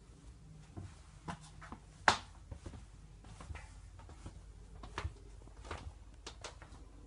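Footsteps and light knocks on a static caravan's laminate floor, with one sharp click about two seconds in.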